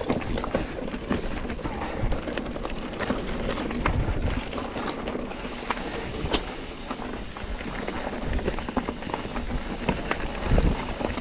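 Mountain bike rolling over rough singletrack: tyres running on dirt and rock, with frequent clicks and rattles from the bike over the bumps.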